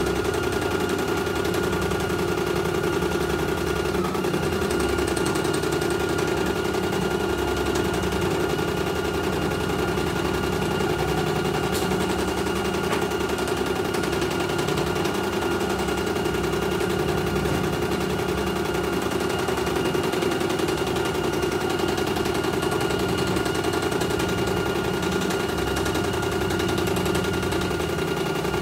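CNY E900 computerized embroidery machine stitching a design: the needle bar hammering rapidly and evenly while the hoop is stepped around, with a steady high whine over the chatter. The run is smooth, with no thread breaking.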